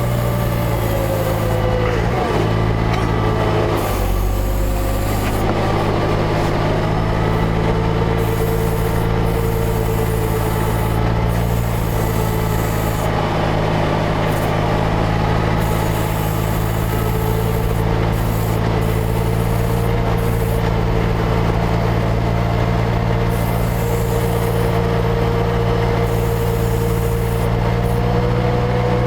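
Tucker Sno-Cat engine running steadily under load as the machine works through deep snow, with a higher whine that slowly rises and falls in pitch.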